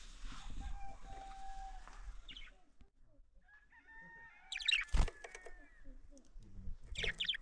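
A rooster crowing in the background over light hiss in the first two seconds. After a short lull, a budgerigar chirps in quick bursts twice, with a single sharp tap about five seconds in.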